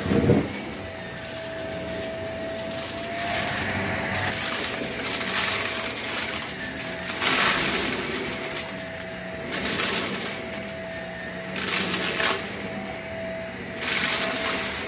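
Shark Navigator upright vacuum cleaner running with a steady motor whine, with surges of noise about every two seconds as small debris is sucked up from the rug on each forward push.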